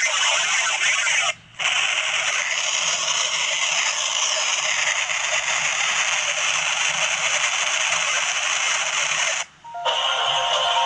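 Harsh, heavily distorted effects-processed audio: a loud hissy wash with no low end. It cuts out briefly about a second and a half in, and again near the end, where a higher-pitched version with faint steady tones starts.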